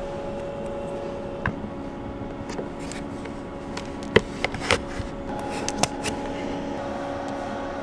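Scattered clicks and small knocks of hands and a tool working at a van window's inner frame, prying out the small rubber caps over the frame screws. A steady hum runs underneath.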